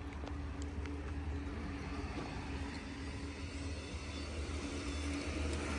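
Steady low rumble of city background noise with a faint constant hum.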